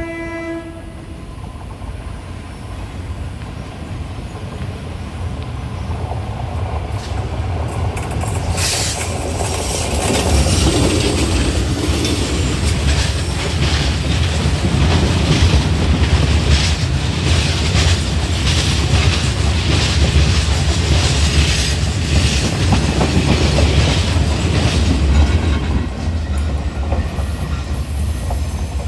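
A freight train of hopper wagons hauled by Taiwan Railway electric locomotive E337 passes at close range. A short horn blast sounds right at the start. Then the wheels rumble and clatter over the rails, with some high wheel squeal, building from about six seconds in and loudest through the middle as the wagons roll by, easing slightly near the end.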